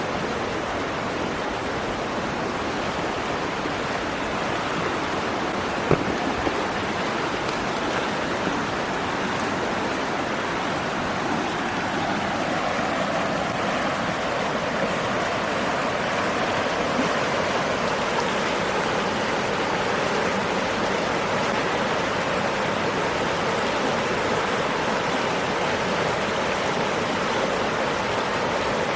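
Steady rushing noise like running water, with a faint drone that slowly drifts in pitch through the second half, and a single click about six seconds in.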